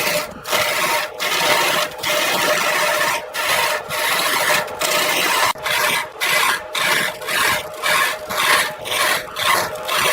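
Wood lathe running, with a tool scraping and cutting the spinning wood in repeated strokes that come faster, about two a second, over the steady hum of the lathe.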